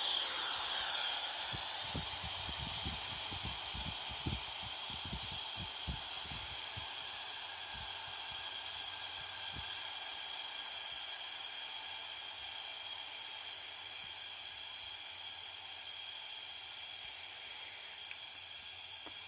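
Compressed air hissing out of a wide-open quarter-inch ball valve on a 10-gallon compressor tank as it drains, the hiss slowly getting weaker as the tank pressure falls.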